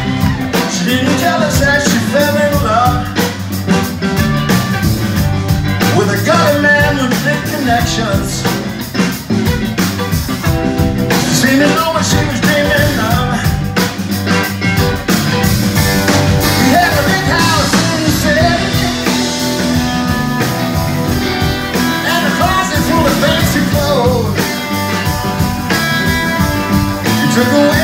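Live rock band playing an instrumental passage on electric guitars, electric bass and drum kit, with a lead electric guitar line whose notes bend up and down in pitch over a steady beat.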